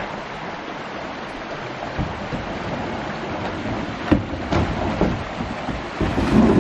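Steady rush of flowing creek water, with several sharp knocks from about two seconds in. A gust of wind rumbles on the microphone near the end.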